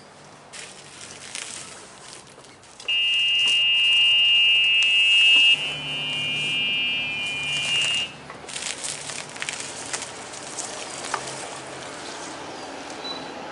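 Electric golf cart's reverse warning buzzer sounding one steady high-pitched tone for about five seconds as the cart backs up, with a faint low hum of its electric drive underneath from midway; a few light clicks come before it.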